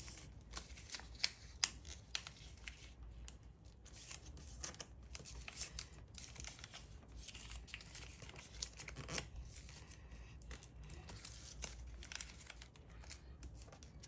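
A sheet of origami paper being folded and creased by hand: irregular quick crinkles and sharp crackles as the folds are pressed flat.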